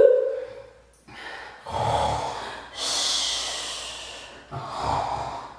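A woman making pretend snoring sounds: twice, a low, rumbly breath in followed by a long hissing breath out.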